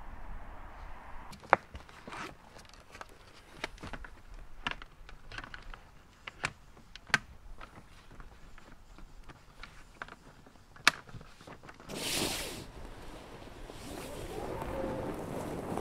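Knocks and clatter of a rigid seat bench being handled and fitted into an inflatable dinghy, with two loud knocks standing out, about a second and a half in and again after about eleven seconds. Near the end a steady scraping rustle as the rubber dinghy is dragged across grass.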